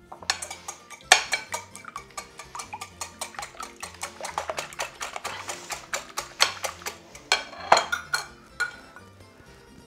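Wire whisk beating eggs in a glass bowl, its wires clicking and scraping against the glass several times a second, stopping near the end.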